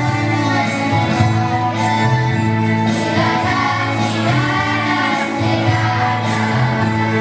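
A children's choir singing a march song over backing music with a steady bass line.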